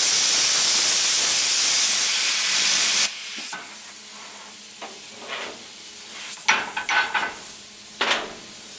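Oxford CUTmaker 551 plasma cutter's arc cutting through 35 mm thick steel: a loud, steady hiss that cuts off suddenly about three seconds in as the cut finishes. A much fainter hiss remains, with a few sharp crackles near the end.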